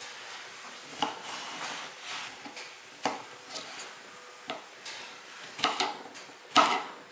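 Knife cutting peeled bottle gourd on a wooden chopping board: scattered knocks of the blade going through the flesh onto the board. The knocks come closer together and louder near the end as the gourd is chopped into cubes.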